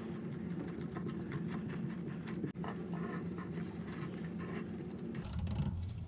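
Plastic lock nut of a toilet fill valve being screwed by hand onto its threaded shank under the tank, gloved fingers rubbing and scratching on the plastic with many small clicks.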